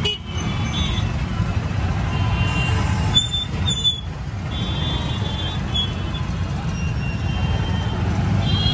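Street traffic heard from a moving open-sided rickshaw: a steady low rumble of road and wind noise. Several short, high-pitched horn toots come from about three seconds in.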